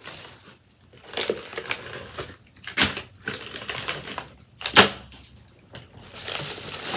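Handling noise of items and plastic packaging being picked through: scattered rustles and light clicks, with two louder sharp knocks about three and five seconds in.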